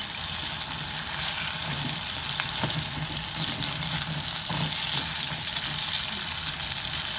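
Cornstarch-coated pork pieces deep-frying in hot oil in a stainless steel pot: a steady sizzling hiss. A few faint knocks come from the wooden spatula and chopsticks stirring the pieces.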